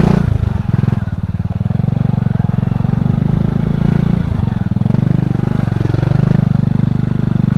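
Single-cylinder four-stroke Honda KPH (Supra X 125) engine of a homemade trail bike running steadily under the throttle, its speed easing briefly about a second in and again around four seconds in.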